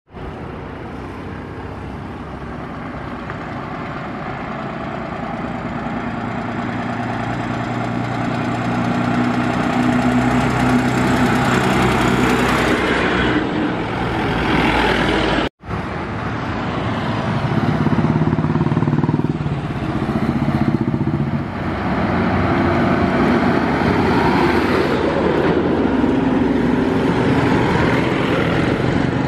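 Diesel engine of a red MSRTC ordinary bus, growing steadily louder as it comes up and passes by, with tyre and road noise. About halfway through the sound cuts off abruptly, and a second loud passing vehicle engine follows.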